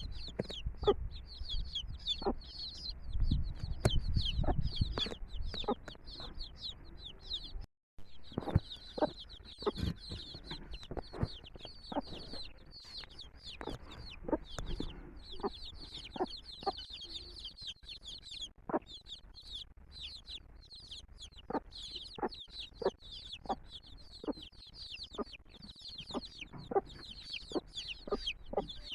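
A brood of chicks peeping constantly in dense, overlapping high chirps, with short low clucks from the mother hen. The sound cuts out for a moment about eight seconds in.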